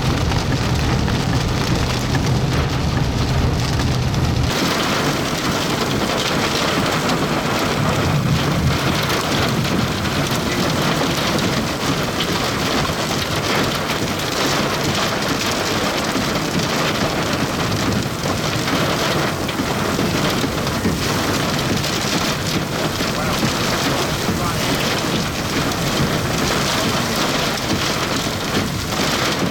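Heavy rain in a severe thunderstorm, a dense, steady patter of drops striking a surface. A low rumble sits under it for the first few seconds, and the sound changes abruptly about four and a half seconds in.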